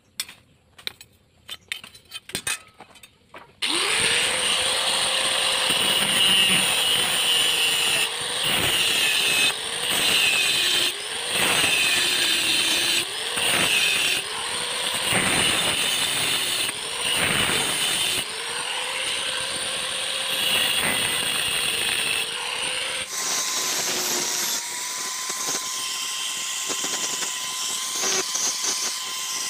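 Light ticks and scrapes of a scriber marking a steel strip, then an electric angle grinder with a cutoff disc starts about four seconds in and cuts into the strip, its pitch dipping each time the disc bites into the metal. About two-thirds of the way through, the grinder's sound changes to a steadier, higher whine.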